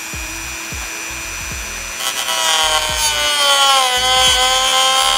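Handheld rotary tool with a thin cutoff wheel spinning with a steady high whine, then about two seconds in biting into a plastic mounting tab: a louder grinding cut, with the motor's whine dropping in pitch under the load.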